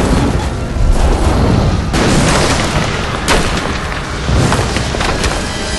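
Loud, deep booming explosion effects that rumble on, with a fresh blast about two seconds in and a sharp crack a little past three seconds, over background music.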